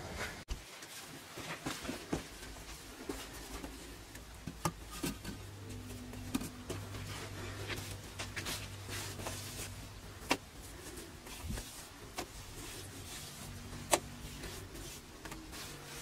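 Hand work on a bare cement floor: a stiff woven fibre brush sweeping with a faint scratchy rustle, and scattered sharp knocks as stones are handled and set down, the sharpest one a couple of seconds before the end.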